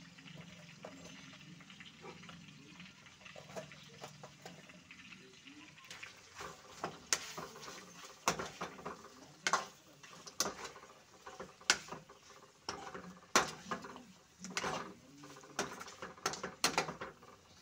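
Metal ladle stirring pork curry in a metal kadai: the curry sizzles quietly at first, then from about six seconds in the ladle scrapes and clinks against the pan in quick, irregular strokes.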